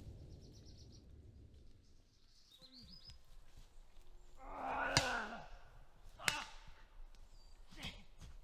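Quiet woodland outdoor ambience with small birds chirping, broken by a few sharp clicks, the loudest about five seconds in.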